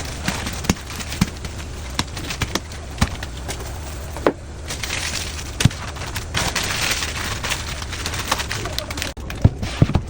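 Irregular light knocks and clicks over a steady hiss, with a few louder knocks near the end.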